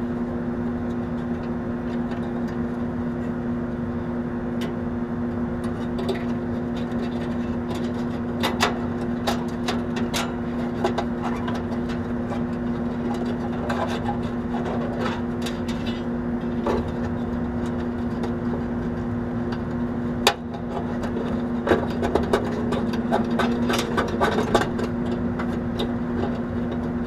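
A steady machine hum with two pitched tones runs under scattered clicks and small knocks from hand work on air conditioner wiring and a cable strap. A sharp knock comes about two-thirds of the way through, and a cluster of quick clicks follows soon after.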